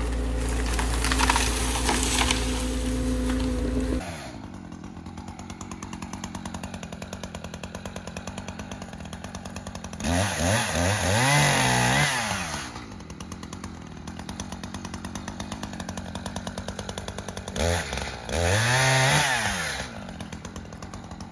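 Two-stroke chainsaw running steadily at speed for the first few seconds, then idling with a fast even putter. It is revved up twice, each time for about two seconds, its pitch rising and falling back to idle.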